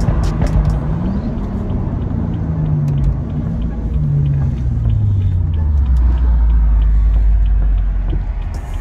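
Stage 2 tuned BMW M135i's turbocharged N55 inline-six, revs rising briefly near the start and then falling steadily over several seconds, settling into a low steady drone.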